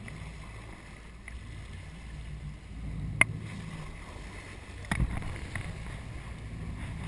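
Steady low rumble of a sport-fishing boat on the water, with a sharp click about three seconds in and a thump about five seconds in.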